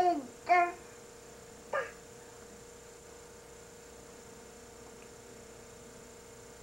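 Seven-month-old baby's high-pitched squeals: two short ones right at the start and a briefer one nearly two seconds in. After that only a steady electrical hum remains.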